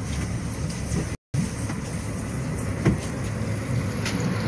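Twin Yamaha 250 outboard motors running with a steady low drone. The sound cuts out completely for a moment about a second in.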